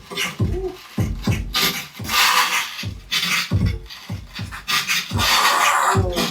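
Hip hop dance-battle beat with heavy, repeated bass kicks and scratchy, beatbox-like sounds over it.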